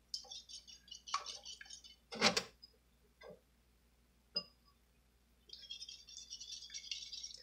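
Wire whisk rattling and clicking quickly against a ceramic bowl while beating eggs with heavy cream, in two spells. A louder thump comes about two seconds in, and a lighter knock a couple of seconds later.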